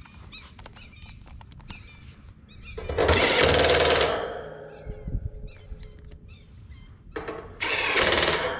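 Cordless impact driver running screws home in two bursts of about a second each, the first about three seconds in and the second near the end, with light handling clicks before them.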